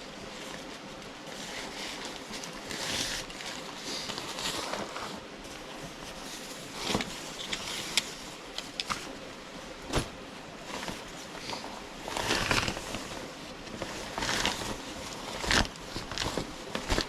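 Rustling and handling noises from camping gear, with several sharp clicks and knocks scattered through, the loudest near the end.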